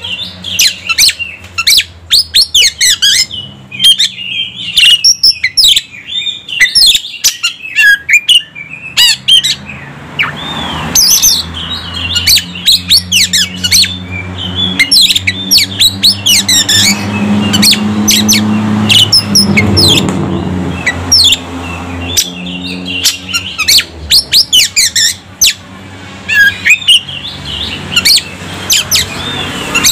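Oriental magpie-robin singing a fast, varied song of short sharp whistles and chirps, almost without pause. A low steady drone sits underneath through the middle.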